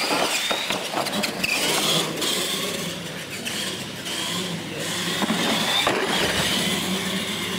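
Radio-controlled monster trucks racing over a concrete floor: motors whining, rising and falling as they speed up and slow, over the rattle of drivetrains and tyres.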